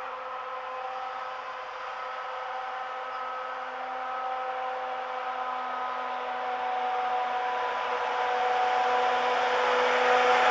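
Soviet-built 'Ludmilla' (Großrusse) heavy diesel locomotive's V16 engine running as it approaches with a sand train: a steady droning hum with several held tones, growing gradually louder.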